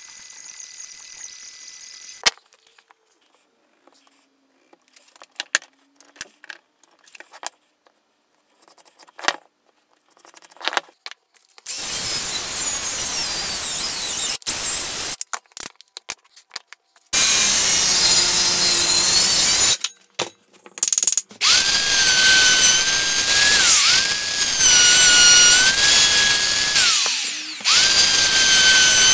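Scattered light clicks and knocks, then a DeWalt cordless circular saw cutting through a board in two runs of a few seconds each. After that a router runs with a high, steady whine whose pitch dips briefly each time the bit bites into the pine.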